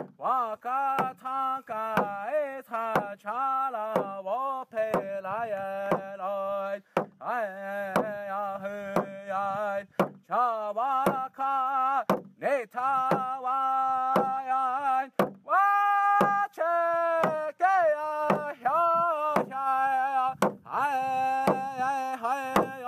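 Music: a man singing a chant-like melody with long wavering held notes over a steady low tone, with a steady beat of struck hits about twice a second.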